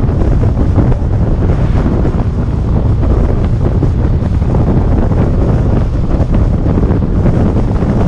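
Loud, steady wind buffeting on the microphone of a camera riding on a moving car, mixed with the rumble of the car on the road.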